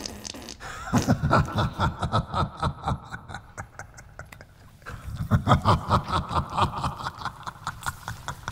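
A man laughing in two long bouts of rapid, pulsing laughter, with a short lull between them.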